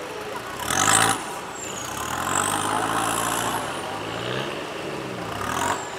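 Engine of a 4x4 off-road vehicle running, its pitch rising and falling as it is revved, with a brief louder burst of noise about a second in.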